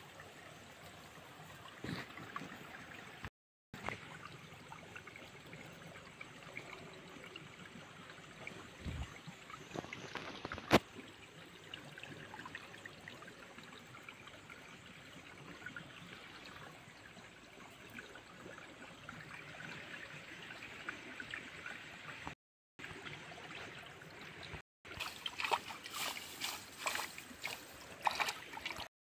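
Shallow muddy stream water trickling past a bamboo-slat fish trap, with scattered small splashes and knocks. A sharp click about eleven seconds in, and a cluster of splashes near the end.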